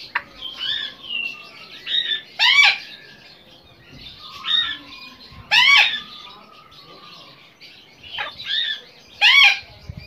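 African grey parrot whistling and calling: a string of short whistled notes, with three louder rising-and-falling calls about three seconds apart.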